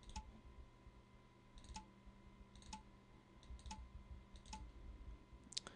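Faint computer mouse clicks, several in quick pairs like double-clicks, about one a second, over near-silent room tone with a faint steady hum.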